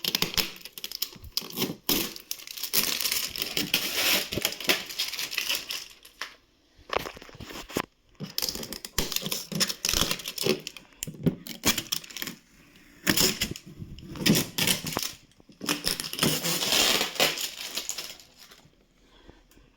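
Protective plastic film and tape being peeled off plastic parts by hand, with crinkling and tearing in irregular bursts and short pauses between.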